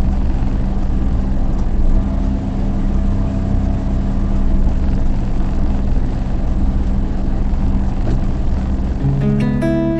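Hyundai County motorhome's engine running steadily at low speed while being manoeuvred into a parking spot. Acoustic guitar music comes in near the end.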